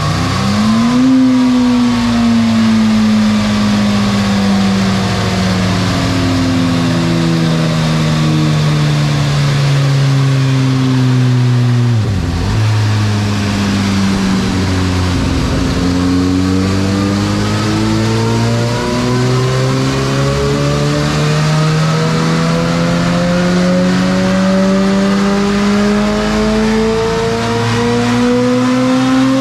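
Inline-four engine of a 2016 Suzuki GSX-S1000 with a custom mid-pipe exhaust, run on a dynamometer. The revs rise sharply at first, then fall steadily for about ten seconds. After a couple of brief dips they climb slowly and steadily again through the last dozen seconds.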